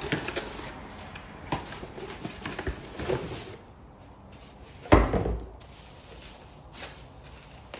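Scattered clicks and knocks of parts and packaging being handled as a new ATV fuel pump is taken out of its box, with one loud thump about five seconds in.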